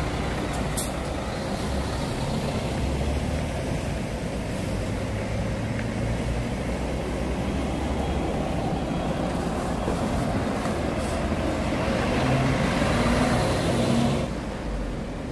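Large tour coaches driving slowly past one after another: a steady engine and tyre rumble that swells near the end and drops off sharply as a coach moves away. A single sharp click about a second in.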